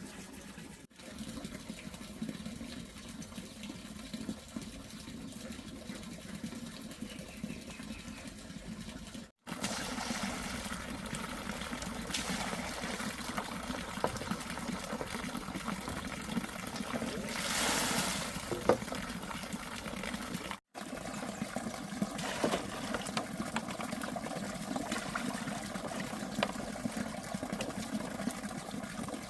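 Water trickling and splashing steadily, in several short clips cut together.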